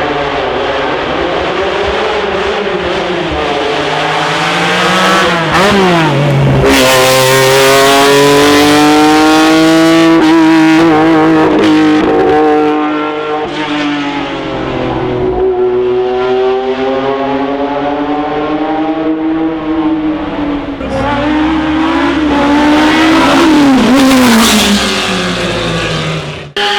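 Racing car engine at full throttle up a hillclimb, climbing in pitch through each gear and dropping back at every upshift. It is loudest as the car comes close, in the middle and again near the end.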